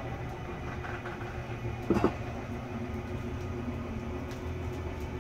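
RV slide-out room's electric motor running steadily as the room retracts, with a single clunk about two seconds in.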